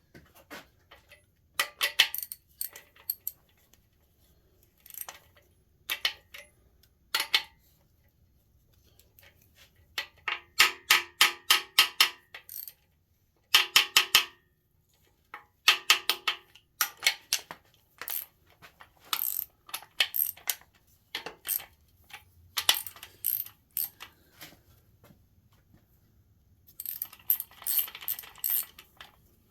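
Ratchet wrench clicking in runs of rapid, even clicks as the main bearing cap bolts of a big-block V8 are tightened down, with short pauses between the runs.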